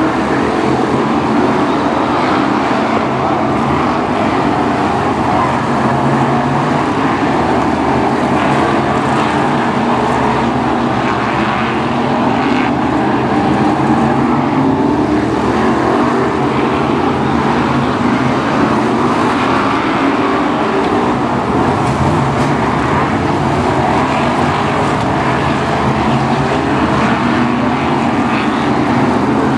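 Several BriSCA F1 stock cars racing past, their V8 engines running hard in a continuous loud din, with the pitch rising again and again as cars accelerate.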